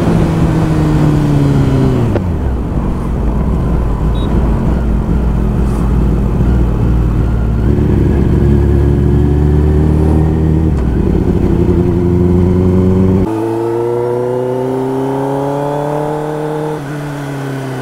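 Kawasaki Ninja ZX-10R's inline-four engine running on the move. Its pitch falls over the first two seconds as the bike slows, holds low, then rises gradually, with a change in tone about thirteen seconds in.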